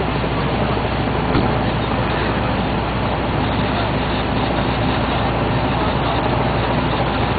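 Steady noise of vehicle engines and road traffic, even and unchanging, with a low steady drone underneath.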